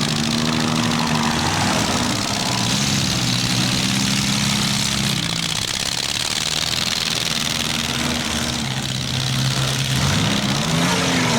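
Demolition-derby mini-car engine revving up and dropping back several times, with its pitch stepping up and down, over a steady wash of noise.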